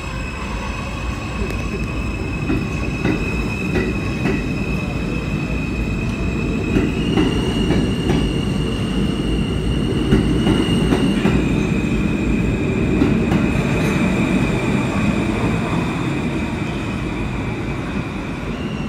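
R160 subway train pulling out of the station: a heavy rumble of wheels on rail with faint clicks over the rail joints, and a steady high whine from the propulsion that steps up in pitch about seven seconds in and back down about four seconds later. The rumble is loudest midway, then eases as the train draws away.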